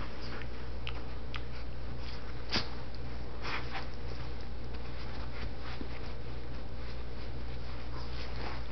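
A puppy mouthing another dog's tail on a fabric couch: a few soft, scattered snuffles and rustles over a steady low hum.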